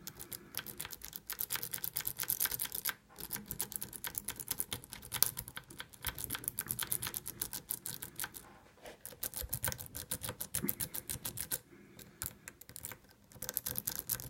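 Rake pick worked rapidly in and out of the keyway of an old 30 mm Bell pin-tumbler padlock: fast runs of light metallic clicks as the pins are bounced, in several bursts with short pauses.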